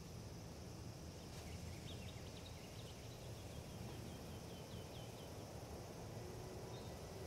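Faint outdoor ambience: a low wind rumble, with a bird calling a quick run of about a dozen short, high chirps a second or so in. Near the end a steady held musical tone comes in.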